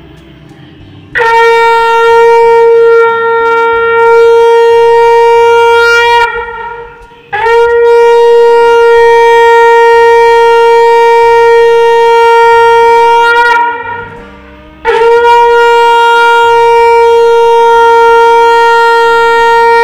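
Conch shell (shankha) blown in three long, steady blasts of about five to six seconds each, the pitch sagging as each blast dies away; the customary sounding of the shankha at the close of a Hindu puja.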